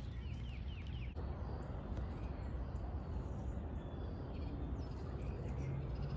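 A wild bird gives a quick run of about six short, slurred chirps in the first second, then a steady rushing noise of water and wind takes over, with a few faint bird chirps scattered through it.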